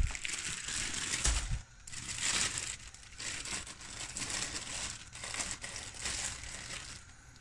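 Plastic bread bag crinkling as it is handled and opened, in several short rustling spells that die away near the end.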